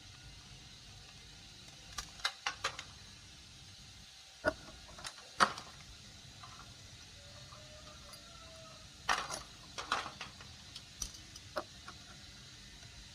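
Scattered sharp clicks and light clatter of hard plastic and metal parts being handled during the disassembly of a laser printer, coming in a few short clusters.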